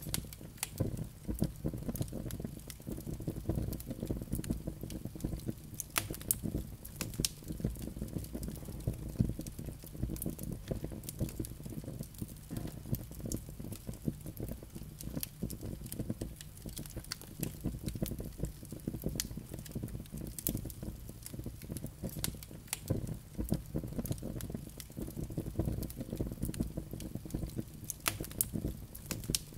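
Wood fire burning in a fireplace: a steady low rush of flames with frequent, irregular crackles and pops from the burning logs.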